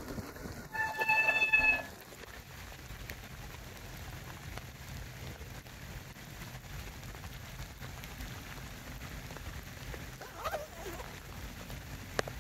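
Rain falling steadily around a bicycle. About a second in, a high, steady squeal lasts about a second, typical of wet bicycle brakes as the bike stops.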